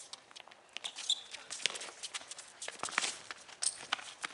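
Players' footsteps and shoe scuffs on a concrete court, mixed with irregular sharp taps from a soccer ball being kicked and dribbled. A couple of brief high squeaks come about a second in and again later.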